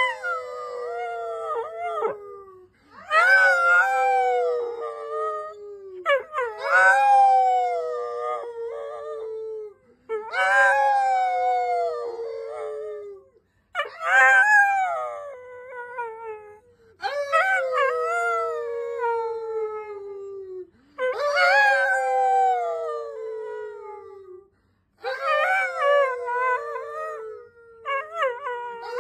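Dog howling over and over: about eight long howls of roughly three seconds each, every one sliding down in pitch, with short pauses for breath between them.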